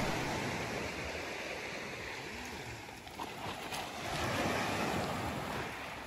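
Black Sea surf washing onto the beach as a steady rush, easing off and then swelling again a little after the middle.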